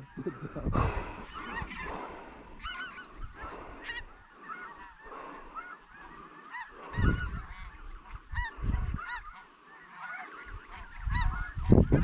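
A flock of snow geese calling, many high, short honks overlapping as a constant chorus. Low rumbles come through about seven seconds in and again near the end.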